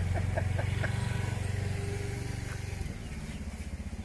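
A motor vehicle's engine running steadily as a low drone of rapid pulses, easing off about three seconds in.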